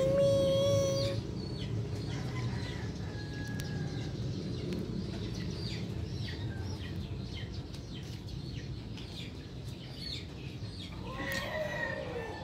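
Chickens clucking and small birds chirping, with a long held call right at the start and a kitten mewing near the end.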